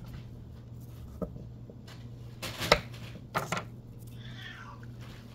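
A few sharp knocks and taps of firm cheese pieces and hands on a paper-covered wooden cutting board, the loudest about two and a half seconds in.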